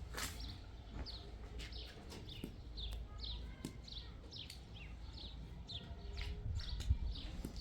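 Small birds chirping: a steady run of short, high, falling chirps, about three a second, over a low background rumble.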